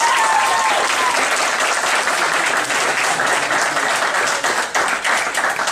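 Crowd applauding, a dense steady clapping, with a high voice crying out near the start.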